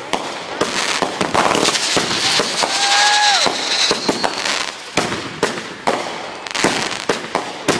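Four 500 g consumer firework cakes firing together: a rapid, overlapping string of launches and bangs. There is a held tone for about a second near the middle.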